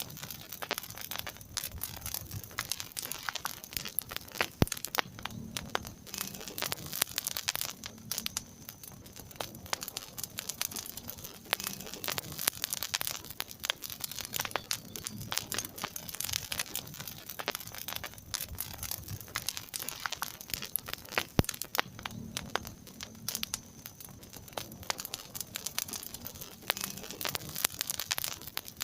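Wood fire crackling in a fireplace, with a steady stream of irregular small pops and snaps. A soft low rumble comes and goes underneath.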